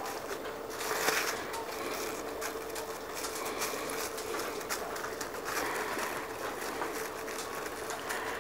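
Plastic wrap crinkling and rustling as hands fold and pinch a masa quesadilla shell, with fine crackly ticks throughout and a steady background hum.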